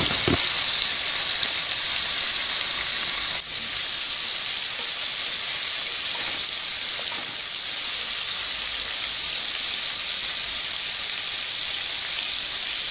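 Chunks of Egyptian sausage (sogoq) frying in hot olive oil in a stainless steel pot: a steady, loud sizzle, with a few knocks as the last pieces drop in at the very start.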